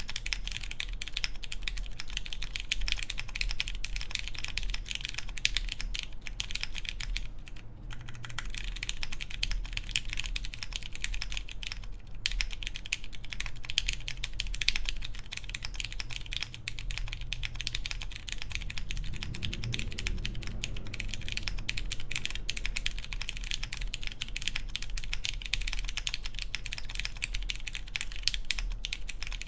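Fast, continuous typing on a Wind Studio Hola Mini mechanical keyboard with lubed Cherry MX Clear tactile switches, a polycarbonate plate and GMK keycaps: a dense run of key clacks, with a brief pause about eight seconds in.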